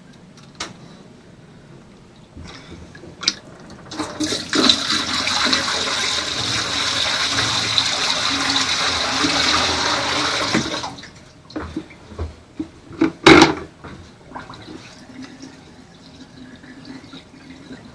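Water rushing into a boat's galley sink and down its newly plumbed drain for about seven seconds, then cutting off suddenly. This is a drain test that shows the sink leaking at its top fitting. A few knocks follow, with one loud thump near the end of them.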